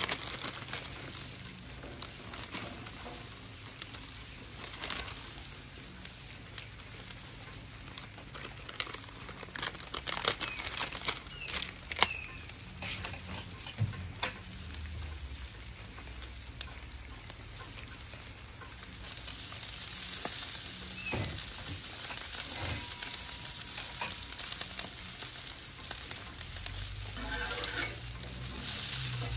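Shishito peppers sizzling in a little oil on a very hot Blackstone flat-top griddle, with scattered clicks and taps as they are spread and turned. The sizzle grows louder about two-thirds of the way through.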